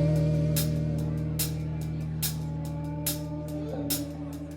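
Live rock band holding a sustained chord that slowly fades, with the drummer keeping steady time on the cymbals between sung lines.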